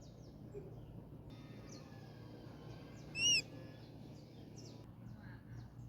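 Birds calling: one clear arched note, rising then falling, about three seconds in, over faint scattered chirps from other birds.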